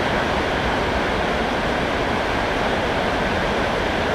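Heavy rain pouring down, a loud, steady hiss without let-up.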